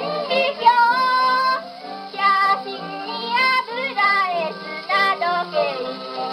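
A child singer's voice with accompaniment in a Japanese children's song, played from a 78 rpm record on an HMV Model 102 wind-up portable gramophone. The sound is thin and narrow, with no deep bass and little top, and the sung notes waver and glide.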